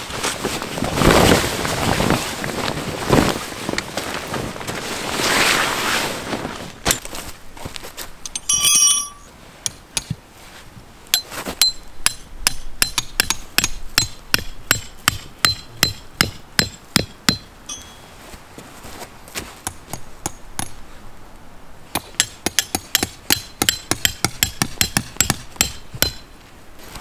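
Tent canvas and a plastic groundsheet rustling as they are spread out. About a third of the way in comes one ringing metal clink. After that, a long run of sharp, ringing strikes follows, about two a second, with a short pause and then a quicker run near the end: metal tent pegs being hammered into the ground.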